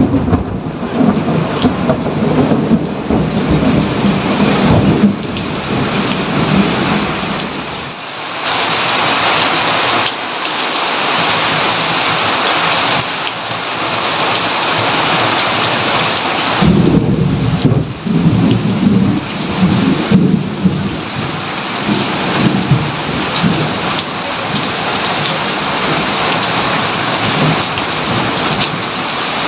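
Thunderstorm: steady heavy rain hissing, with long rolls of thunder rumbling for the first several seconds and again from a little past halfway to near the end.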